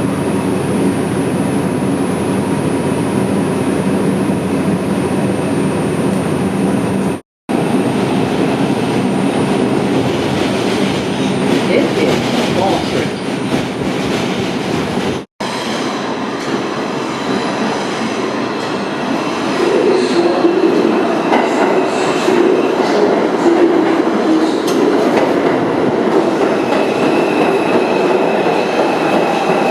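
New York City subway train running on the IRT White Plains Road Line, a steady loud rumble and rattle of wheels on rail. It breaks off twice for an instant, and a high, steady wheel squeal comes in near the end.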